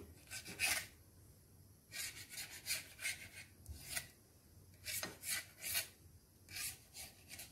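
Kitchen knife cutting rolled dough on a metal plate: about a dozen short scraping strokes of the blade against the metal, in irregular clusters with short pauses between.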